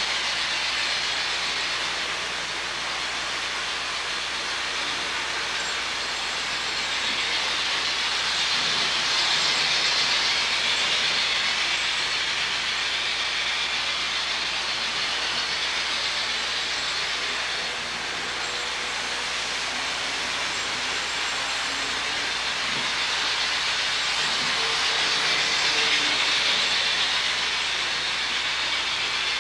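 HO scale model trains running on the layout: a steady hissing rush of wheels and motors on the track that swells twice, about ten seconds in and again near the end.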